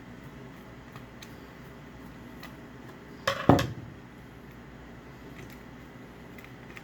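A hard part or tool set down on a tabletop with a short clatter about three and a half seconds in, a few quick knocks close together, amid faint small clicks of parts being handled.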